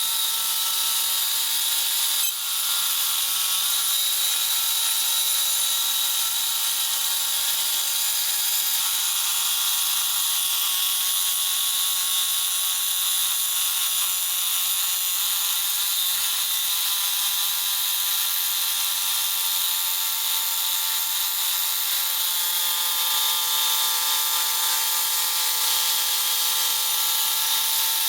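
Pile-driving machinery running with a steady high-pitched whine and hiss, with no hammer blows; the pitch shifts slightly near the end.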